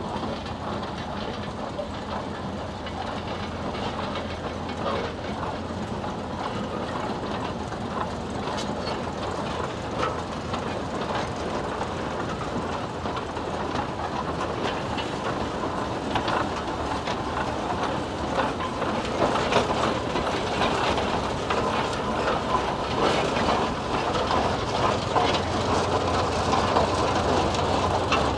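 Large Case steam traction engine moving slowly past, its gearing and steel-cleated wheels making a steady, irregular clatter that grows louder in the second half.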